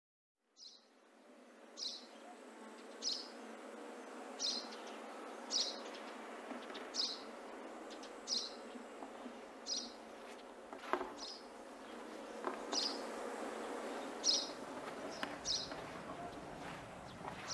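Night nature ambience: a steady buzzing insect drone with a short high chirp repeating unevenly every second or so, starting about half a second in.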